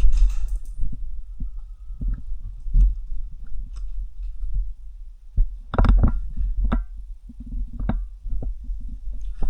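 Footsteps and kit movement picked up by a body-worn camera: a run of dull low thumps, with a cluster of sharper crunches and clicks about six seconds in.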